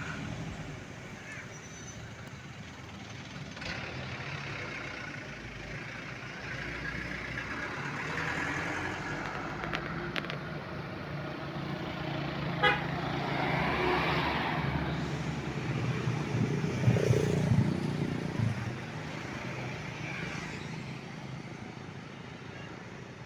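Road traffic with a tour bus passing: the vehicle noise swells to its loudest a few seconds before the end and then fades, with horn toots in the mix. A short sharp click comes about halfway through.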